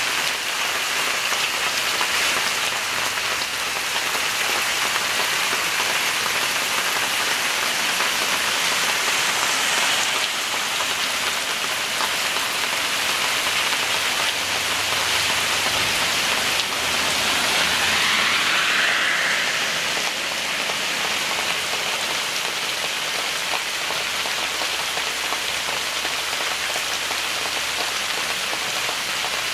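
Heavy rain pouring steadily onto a garden yard, an even hiss of downpour, swelling slightly for a few seconds past the middle.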